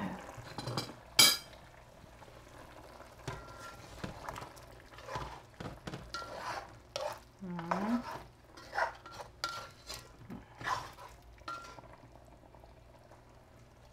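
A spoon stirring chunks of chicken, carrot and potato in a metal pot, with irregular scrapes and knocks against the pot and one sharp knock about a second in.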